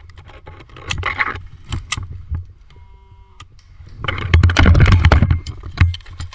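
Rattling and scraping of gear handled close to the microphone, with scattered sharp clicks and a louder rush of rustling about four seconds in.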